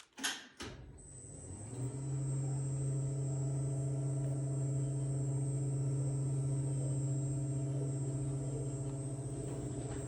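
Stiltz Alta Duo through-floor home lift starting to rise after a brief click or two, its drive motor building up over about a second into a steady hum with a faint high whine above it.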